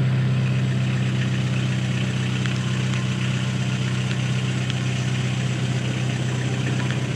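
Engine of an Orion orchard harvest platform running steadily at a constant speed.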